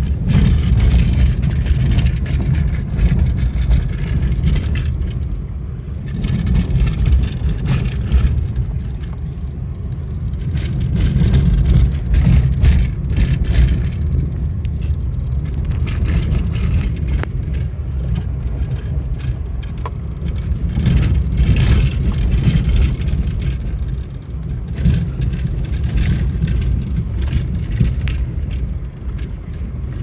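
Motor vehicle travelling on a road: engine and road noise with a heavy low rumble that swells and eases every few seconds.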